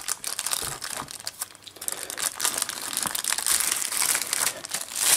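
Clear plastic zip-lock bag crinkling and rustling as hands work a handheld multimeter out of it. The crackle is irregular and grows louder in the second half.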